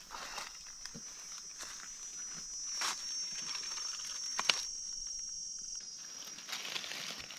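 Footsteps crunching and rustling through dry leaf litter, with two sharper crunches about three and four and a half seconds in. Behind them runs a steady, high, thin insect buzz.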